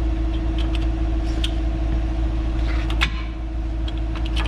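A steady machine hum with a low drone. Over it come short metallic clicks and taps, with one louder clack about three seconds in, as a brake pad with its shim is worked in and out of the caliper bracket. The pad had been sticking on its shim.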